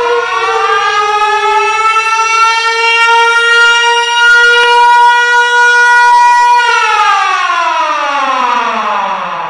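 Loud civil defense siren wailing. Its pitch rises, holds steady for about four seconds, then falls away from about seven seconds in, and starts to climb again right at the end.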